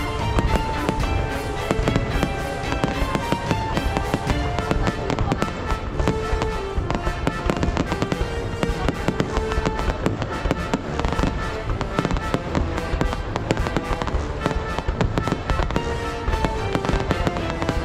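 Fireworks going off in a dense, continuous string of bangs and crackles, several a second, over background music with a melody.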